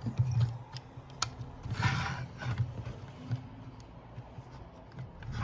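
Handling noises: light clicks and rubbing as a diecast model bus and its packaging are handled, with a brief rustle about two seconds in.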